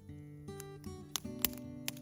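Background music, a melody of held notes, with a few sharp clicks over it, the loudest about a second and a half in.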